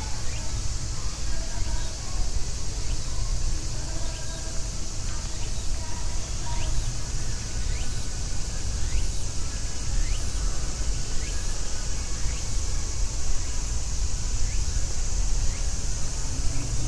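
Outdoor city walking ambience: a steady low rumble and a steady high hiss throughout, with faint voices early on and short rising chirps repeating through the middle.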